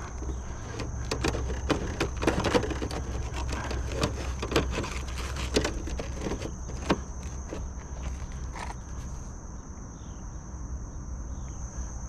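Irregular clicks, knocks and light scrapes of hand work with roofing parts, over a steady high insect drone.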